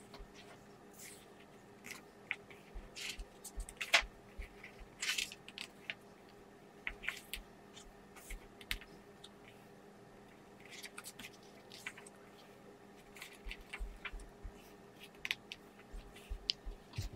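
Paper pages of a photobook dummy being handled and turned: irregular crisp paper rustles and flicks, with a brief lull about midway.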